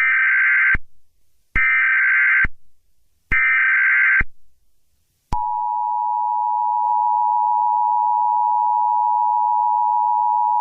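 Emergency Alert System header: three short bursts of SAME data tones, each just under a second long. A little over a second after the last one, the steady two-tone EAS attention signal starts and holds.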